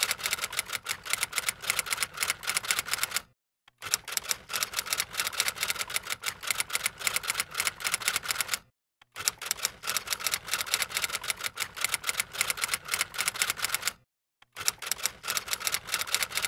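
Typewriter sound effect: rapid clatter of keystrokes in long runs, broken by short pauses about three and a half, nine and fourteen seconds in.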